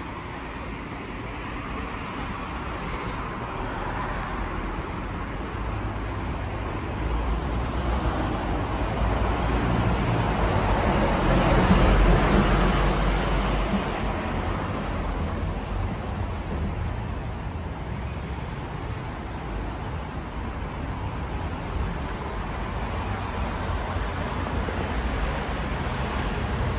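Street traffic noise: a steady rush of passing road traffic, swelling as a vehicle goes by about halfway through.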